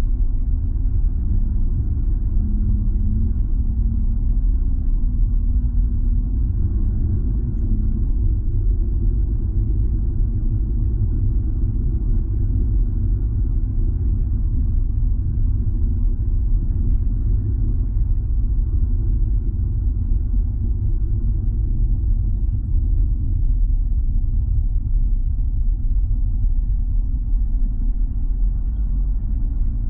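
Steady low rumble of a car's engine and tyres on a snow-covered road, heard from inside the cabin; a faint engine note shows through in the first several seconds.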